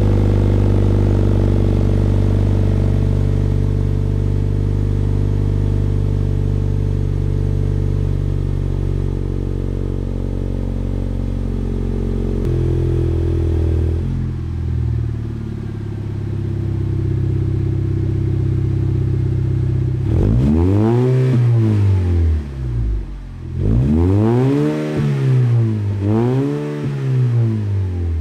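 Turbocharged Lexus IS engine running through a new straight-through axle-back exhaust (muffler delete), at a steady fast idle after a cold start. About halfway through the idle drops lower, and near the end the throttle is blipped about three times, the revs rising and falling each time.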